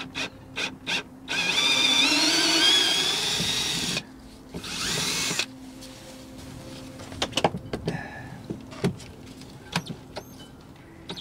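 Ryobi cordless drill-driver unscrewing a stubborn screw from a winch base. The motor runs for about two and a half seconds with a rising whine, then makes a second shorter run. Clicks and knocks of metal parts being handled come before and after.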